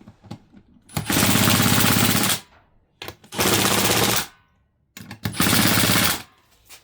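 1/4-inch impact driver hammering on its lowest setting in three short bursts, running down the bolts of a bead lock ring before final torquing.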